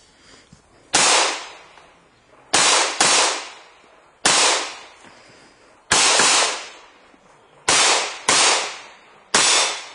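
Handgun shots fired on a practical-shooting stage: eight shots at uneven spacing, two of them as quick pairs about half a second apart, each dying away over about half a second.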